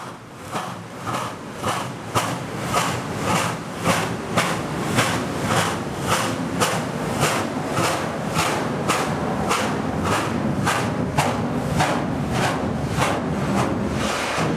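2-8-0 Consolidation steam locomotive No. 734 working up to the camera, its exhaust chuffing in a steady beat of a little under two a second over a low rumble of the running gear.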